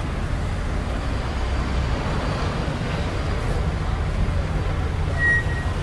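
Steady low rumble of road traffic, with a short high-pitched beep about five seconds in.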